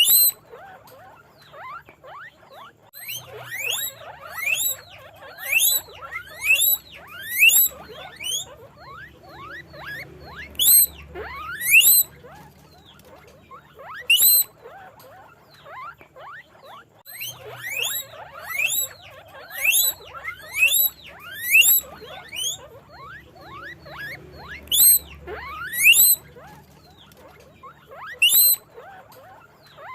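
Guinea pig squeaking: loud, high squeals that each rise sharply in pitch, in runs of several calls about a second apart with short pauses between runs.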